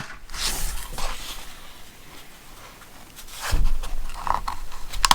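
Handling noises from a tool bit set and its plastic case: soft rustling and scraping, with a dull thump about three and a half seconds in and a short click near the end.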